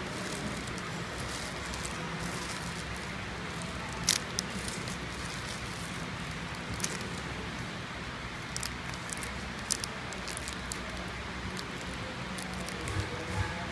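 Flow packaging machine for baked biscuits running with a steady low hum, over which come scattered sharp clicks and crinkles of the plastic film wrappers. The loudest click is about four seconds in.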